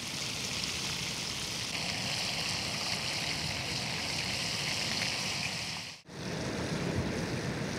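Mahi-mahi fillets deep-frying in hot oil in a pan over a wood fire, giving a steady sizzle. The sound drops out for a moment about six seconds in, then the sizzle comes back under more low background noise.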